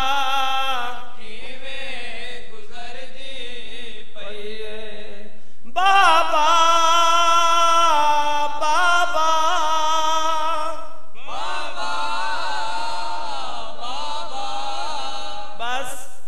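A noha, a Shia mourning lament in Punjabi, chanted by male voices in long, held, wavering phrases. A louder passage of sustained notes runs from about six seconds in until about eleven.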